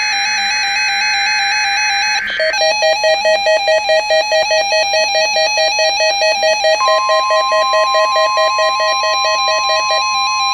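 NOAA Weather Radio test alert. A burst of data tones cuts off about two seconds in, and an alert receiver's alarm then beeps in fast pulses, about three a second. About seven seconds in, the steady 1050 Hz warning alarm tone comes on and holds.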